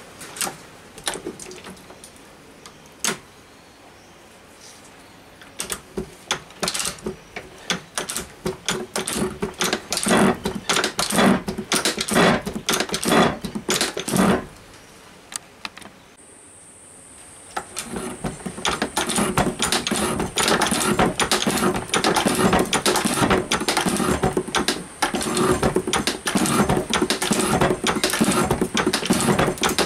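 Metal shaper cutting a metal bar clamped in its vise: a few scattered clicks, then the tool scraping and chattering through the metal in quick rhythmic strokes. The strokes stop briefly about halfway, then start again more continuously, with a faint high steady whine.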